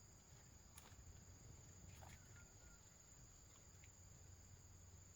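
Near silence outdoors: a faint steady high insect drone, like crickets, with a couple of faint clicks.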